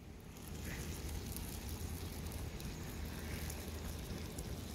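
Open wood fire burning under a lidded pan of mussels, with faint scattered crackles over a low steady rumble.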